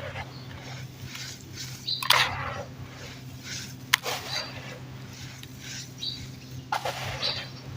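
Lumps of dirt crumbling and crunching, in a few sharp gritty bursts, strongest about two, four and seven seconds in, with light crackling between them. A steady low hum runs underneath.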